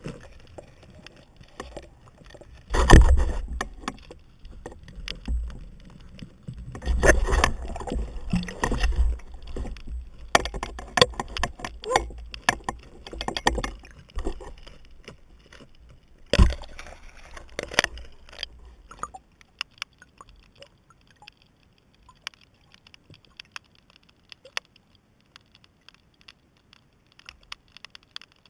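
Water sloshing and muffled knocks and clicks picked up through a GoPro's underwater housing as a diver moves and handles a speared sheepshead on the spear. The knocks come in loud clusters in the first half, with the biggest about three seconds in and another near sixteen seconds. After about nineteen seconds only sparse faint clicks remain.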